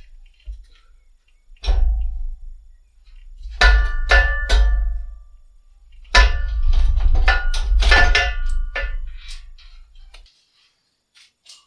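Metal being knocked and struck: a string of irregular clanks, many ringing briefly, in clusters about two, four, and six to nine seconds in.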